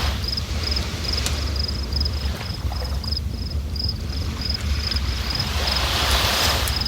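A river rushing steadily with a deep low rumble, the rush swelling near the end. An insect chirps in an even rhythm over it, about three short high chirps a second.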